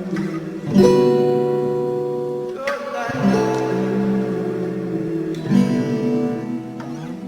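Instrumental passage of a pop song: strummed guitar chords, a new chord about every two and a half seconds, each left to ring out.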